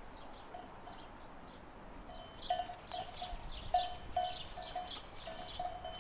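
Livestock bells clanking irregularly as animals move, sparse at first and then frequent from about two seconds in.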